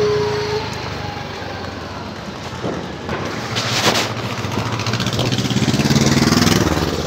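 Street traffic: vehicle engines running, with a short steady beep at the start and a brief hiss about halfway. A pulsing engine swells from about five seconds in and eases off near the end, as a vehicle passes close.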